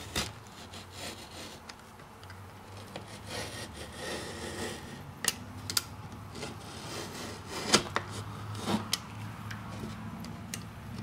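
Knife blade scoring drywall along marked lines, with irregular scraping strokes through the paper face and several sharp clicks along the way.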